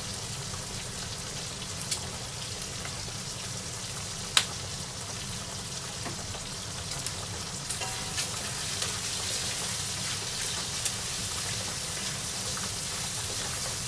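Bacon pieces sizzling steadily in a wok, the frying hiss growing louder in the second half, with a few sharp clicks from the pan, the loudest about four seconds in.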